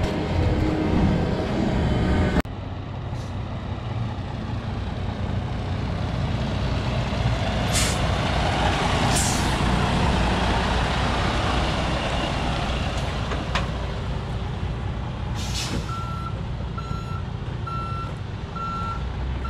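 Western Star tri-axle dump truck's diesel engine running, with short hisses of air from its brakes about eight and nine seconds in and again a few seconds later. Near the end its reversing alarm starts beeping, a bit more than once a second.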